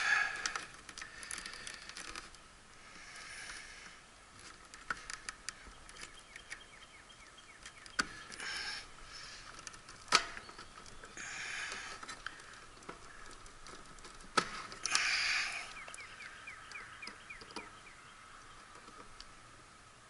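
Hands working wiring and spade connectors on an air conditioner's run capacitor: scattered light clicks, rattles and rustling, with a few sharper snaps about 8, 10 and 14 seconds in, as leads come off for a capacitance check.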